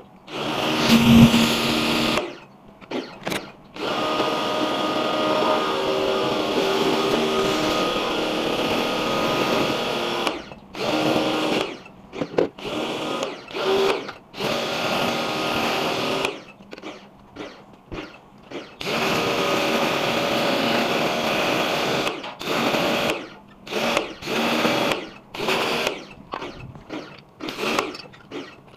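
Small electric pressure washer (water jet pump) running while spraying water, in long spells that cut off and restart several times as the trigger is released and pulled, with shorter on-off bursts near the end.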